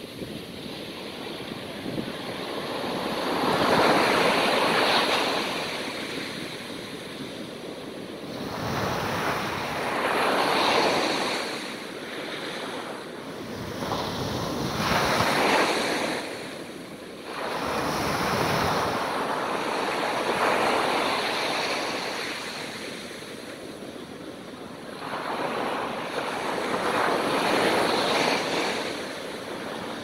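Small sea waves breaking and washing up a sandy beach. The surf swells and fades several times, roughly every five or six seconds.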